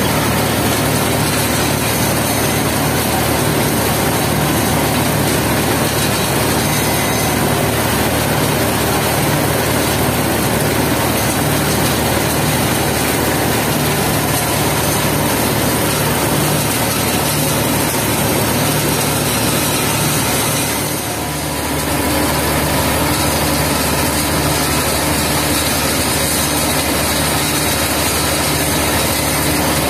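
Asphalt mixing plant machinery running with a loud, steady mechanical drone and hiss. The noise dips briefly about two-thirds of the way through.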